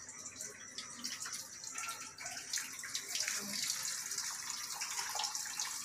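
Top-loading washing machine draining its tub at the start of a spin cycle: a steady rush of water that grows louder about two and a half seconds in.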